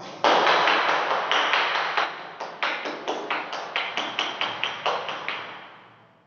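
A quick run of sharp taps or knocks, about four a second, loud at first and fading away over about five seconds.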